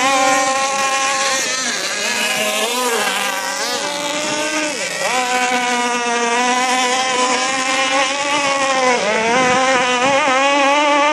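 Racing boat engine with a loud can-type exhaust running at high revs, the throttle eased off and opened again a few times so the pitch dips and climbs back.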